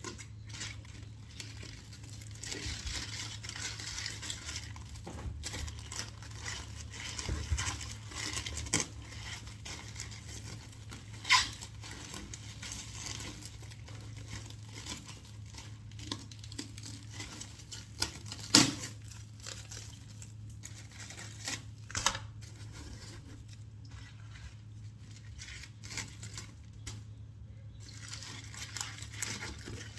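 Plastic cling film being pulled, torn and crinkled as it is wrapped over kale, with a few sharp clicks or knocks along the way. A steady low hum runs underneath.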